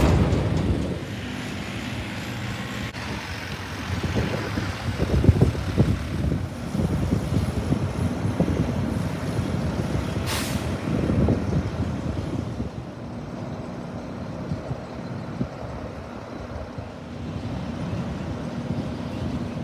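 Diesel engines of garbage trucks running as the trucks drive past, with the level rising and falling. A short air hiss, typical of a truck's air brakes, comes about ten seconds in.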